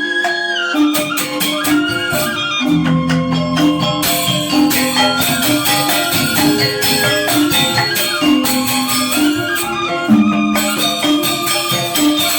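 Balinese gamelan angklung ensemble playing: four-tone reong gong-chimes and metal-keyed instruments ringing in a fast, steady rhythm over repeated low pitched notes, with bamboo grantangan in the mix.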